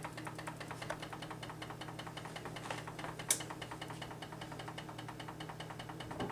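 A mechanical cooking timer ticking fast and evenly, about six or seven ticks a second, over a steady low hum, with one sharp click about three seconds in.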